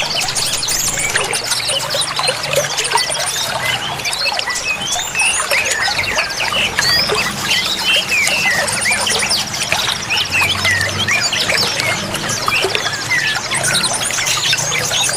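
Many small songbirds chirping and twittering at once over trickling water, with fast, high buzzing trills coming and going.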